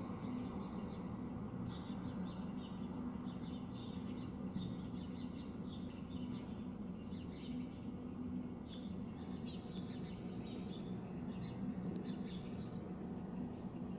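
Many short bird chirps, scattered and overlapping, over a steady low hum and background noise.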